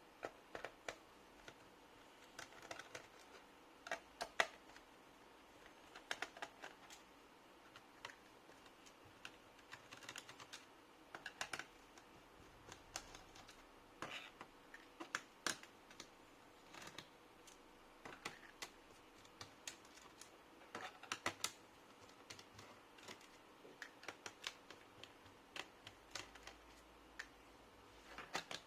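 Irregular small clicks and taps of a laptop's plastic and metal parts and a screwdriver being handled during disassembly, some sharper than others.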